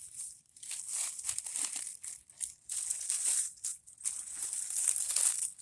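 Irregular crinkling and rustling, in uneven bursts of scratchy high-pitched noise.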